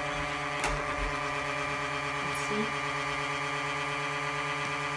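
Toy ball pitching machine's electric motor running steadily with an even hum, spun up and waiting for a ball to be loaded; a faint click just over half a second in.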